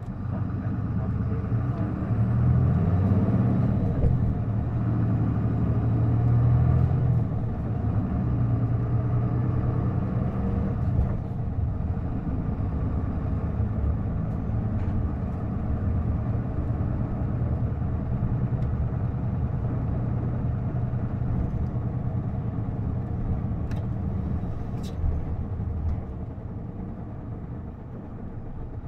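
Isuzu Erga city bus (PKG-LV234L2) heard from inside while under way. Its inline-six turbo-diesel climbs in pitch over the first few seconds as the bus gathers speed, then runs steadily, and eases off near the end.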